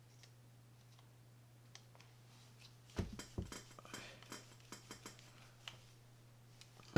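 Light clicks and taps of small screws and a screwdriver against a Shimano Curado K baitcasting reel's side plate as its screws are put in, a few scattered clicks at first, then a quick run of them from about three seconds in, over a faint steady hum.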